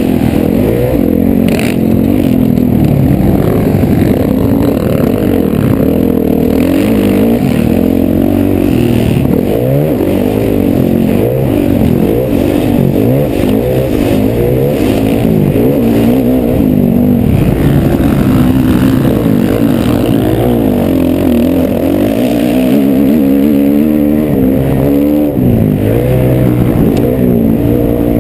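Dirt bike engine heard from the rider's helmet, ridden hard around a motocross track, its pitch rising and falling over and over as the throttle is opened and closed.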